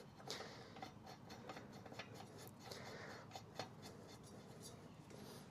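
Faint, scattered light clicks and rubbing of small metal parts being handled as a propeller tab washer is fitted onto the outboard's prop shaft.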